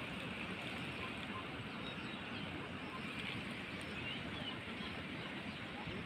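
Steady outdoor background noise with a few faint, short high chirps.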